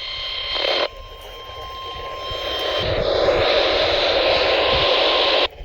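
Radio receiver hiss from weak, noisy NOAA Weather Radio reception while the receiver is being tuned between channels, with a faint steady tone under the noise. The hiss drops abruptly about a second in, swells back up, and cuts off suddenly near the end as the channel changes.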